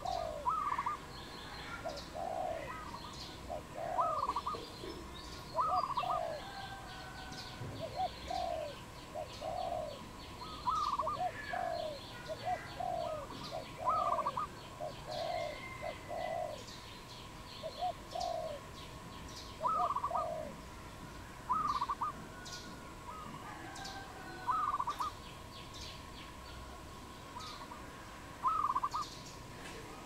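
Dove cooing in short phrases of soft notes repeated every couple of seconds. Other small birds chirp thinly above it, over a faint steady tone.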